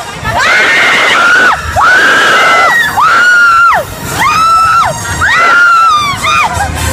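Riders on a fast fairground ride screaming: about six high shrieks in a row, each rising and falling and lasting about a second. These are thrill screams from the ride's motion.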